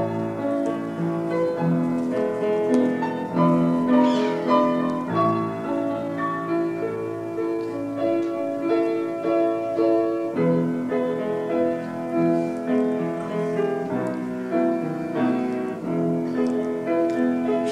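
Piano playing slow music in long held chords.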